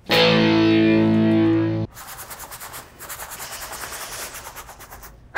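A distorted electric guitar chord rings out loudly for nearly two seconds and cuts off abruptly. It is followed by a quieter run of quick, even scratchy strokes.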